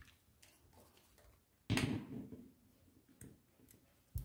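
Quiet handling sounds while scissors are brought to crochet yarn: one clunk about halfway through, a few faint ticks, then a sharp scissor snip cutting the yarn right at the end.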